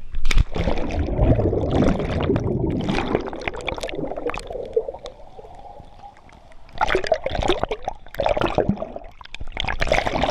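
Swimming-pool water splashing and churning against a GoPro held at the surface, going quieter while the camera is under the water, then a run of short splashes in the last few seconds as it comes up through the surface.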